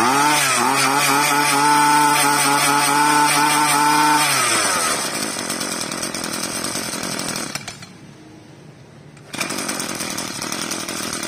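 Hitachi 24cc two-stroke brush cutter engine pull-started and running. It revs high at first and drops back about four seconds in. Near eight seconds it goes quiet, and at about nine seconds it is running again after another pull on the starter cord.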